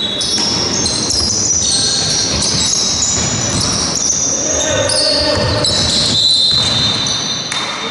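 Basketball play on a wooden sports-hall court: sneakers squeak sharply and often as players run and cut, and the ball bounces.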